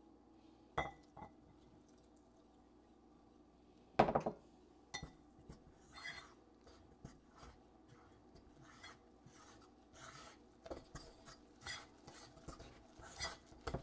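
A metal utensil clinking and scraping against a ceramic mixing bowl as dumpling dough of flour, milk and stock is stirred, in irregular taps that grow busier toward the end. Two sharp clinks come about a second in, and a louder knock about four seconds in.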